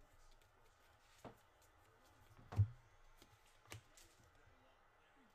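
Trading cards handled by hand as a pack is flipped through: a few faint scattered clicks and taps, the loudest about two and a half seconds in.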